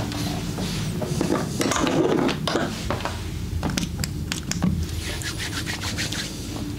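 Massage sounds: hands rubbing and scraping over skin, with scattered sharp clicks, over a steady low hum.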